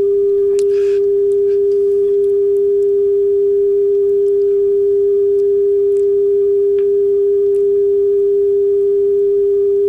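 Steady 400 Hz test tone from an RCA 8-track test tape playing in a Craig/Pioneer 3108A car 8-track player. The tone holds close to 400 cycles, showing the tape speed is in spec.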